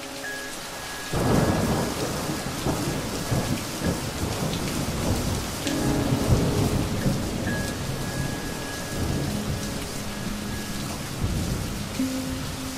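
Steady rain with thunder that breaks in about a second in and rumbles on. Soft held music notes sound faintly underneath.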